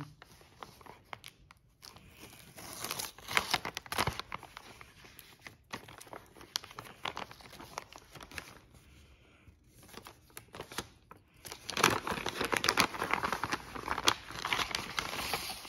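Christmas gift-wrapping paper being crinkled and torn open by hand, in two spells of dense rustling: one about three seconds in and a longer one from about twelve seconds in to near the end, with softer rustling between.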